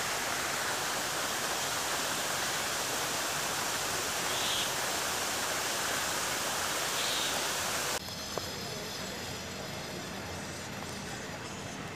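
Steady rushing hiss of water spraying from lake fountains. It cuts off abruptly about eight seconds in to a quieter outdoor background.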